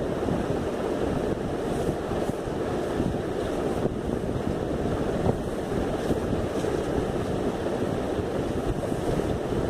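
Steady low rushing noise with no distinct events.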